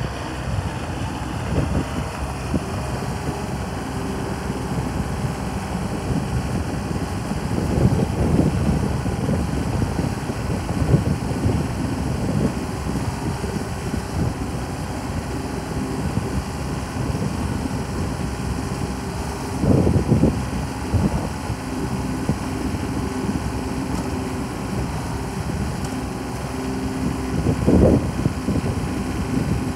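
John Deere 455 lawn tractor's three-cylinder diesel engine running steadily as it drives, with a few brief louder surges.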